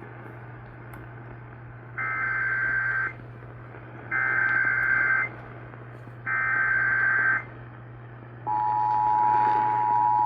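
Emergency Alert System activation over AM radio, carrying a severe thunderstorm warning. First come three one-second bursts of SAME header data tones, about a second apart. Then the two-tone attention signal (853 and 960 Hz) starts near the end and holds steady, with a low hum underneath throughout.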